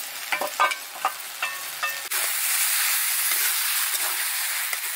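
Drumstick curry masala sizzling as it fries in a steel kadhai over a wood fire, stirred with a flat spatula. The curry is being fried down (bhuna) on a high flame. A few light clicks come in the first two seconds, then the sizzle turns suddenly louder and steady about two seconds in.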